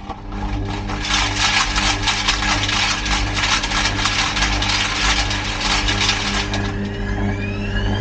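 Washing machine running, heard from inside the drum: a steady motor hum under a dense rattling as the drum turns. About six and a half seconds in, a whine rises in pitch as the motor speeds up.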